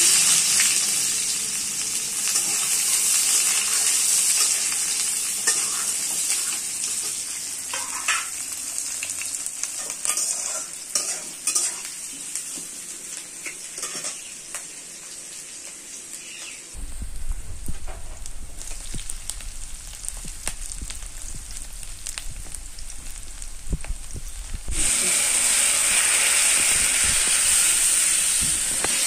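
Sliced onions frying in hot oil in an aluminium kadai, sizzling loudly as they go in, with a metal spatula scraping and clinking as they are stirred. The sizzle eases off midway and comes back loud near the end.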